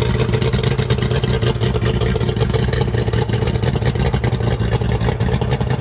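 OMC 300 hp two-stroke V8 outboard engine running steadily out of the water on a trailer, cooled by a garden hose on the lower unit.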